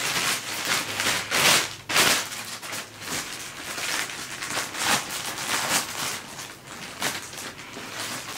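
Packaging rustling and crinkling in irregular bursts as a package is opened and its contents handled, loudest in the first couple of seconds.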